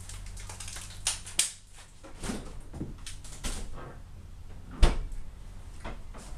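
A few light clicks and knocks, then one sharp knock a little under five seconds in, over a faint steady low hum.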